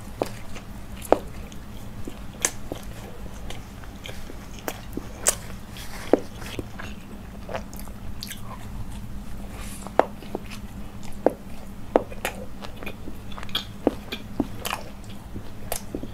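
Close-up biting and chewing of a chicken roll, with sharp mouth clicks and smacks at irregular intervals over a faint steady low hum.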